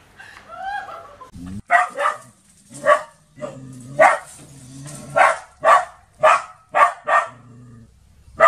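A small dog barking repeatedly at a monitor lizard, giving about ten short, sharp barks at an uneven pace, starting about a second and a half in.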